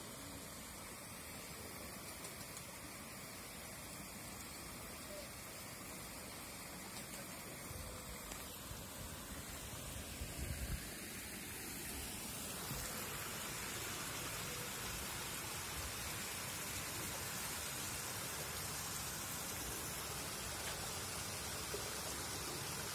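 Water pouring over a series of small stepped weirs in a pond cascade, a steady rushing hiss that grows louder about halfway through. A few low knocks sound near the middle.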